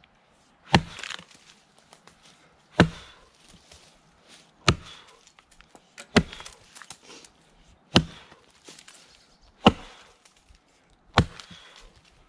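Brades Tasmanian pattern axe chopping into a dry log: seven sharp strikes, one about every one and a half to two seconds.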